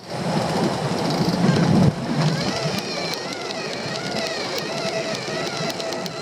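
Water rushing along a sailboat's hull and wind buffeting the microphone as the yacht sails under sail. In the second half a faint wavering whine and a few light clicks sound over it.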